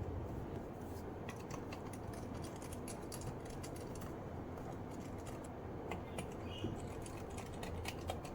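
Scattered light plastic clicks and taps from an HP 14 laptop being handled, a few a second, over a steady low hum.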